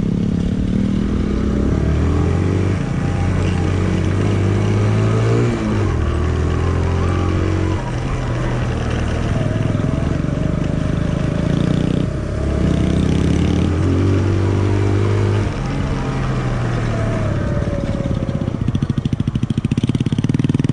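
Small 125 cc single-cylinder motorcycle engine under way off-road, its pitch rising with throttle and dropping back at each gear change or let-off every few seconds.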